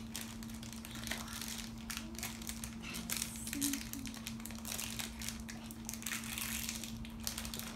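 Crinkly wrapper crackling and rustling in a person's hands as a small treat is unwrapped, a dense run of irregular crinkles.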